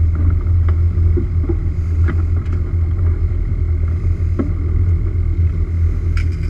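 A fire boat's engine and pump running with a steady low drone, driving a fire hose that is spraying a strong stream of water.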